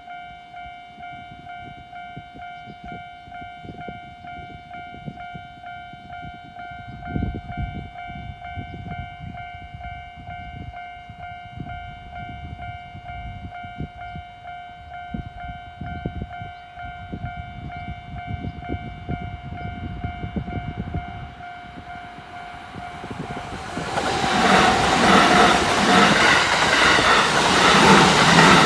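Japanese level crossing warning bell ringing steadily over a low rumble and scattered knocks. About 24 seconds in, a Kintetsu train passes over the crossing with loud rushing and wheel noise, loudest near the end.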